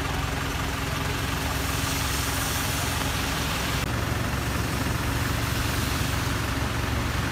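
A motor vehicle's engine idling steadily, a low even hum, under a steady hiss of rain.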